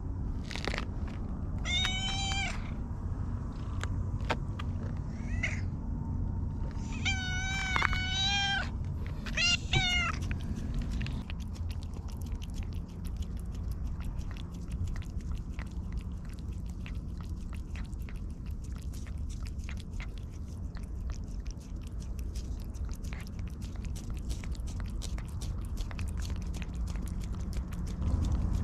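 A black-and-white cat meows several times in the first ten seconds, then licks a squeeze-tube paste treat, making a long run of rapid wet licking clicks.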